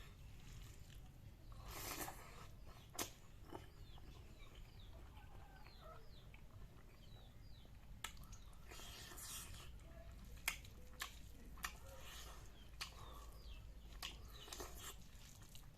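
Close-up eating sounds of a person chewing a meal of kidney beans: soft chewing with scattered lip smacks and sharp mouth clicks. Faint bird chirps sound in the background.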